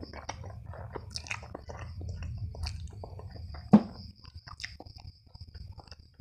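Close-miked chewing and biting of food, with moist mouth clicks and smacks. A single sharp click stands out a little past halfway.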